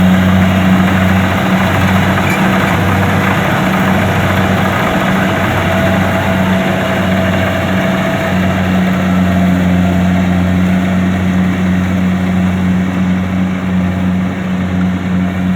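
Kubota DC-70 combine harvester running steadily, a constant low engine hum under the noise of its machinery, easing slightly near the end.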